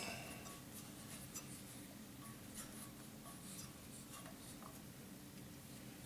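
Faint scraping and light clicks of a propane heater's metal mounting coupling being twisted by hand onto a propane tank's valve.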